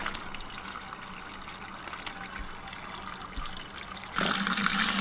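Rosehip juice, the last pressed from the fermented mash, trickling in a thin stream from a fruit-press spout into a metal strainer over a plastic canister. The trickle is fairly quiet, then suddenly louder and brighter about four seconds in.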